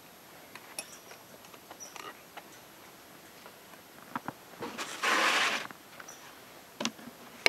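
Steel body-grip traps being handled: small scattered clicks and clinks, then a rattle about a second long, a little under five seconds in, as a trap is pulled from a wooden crate, followed by a couple of sharp clicks near the end.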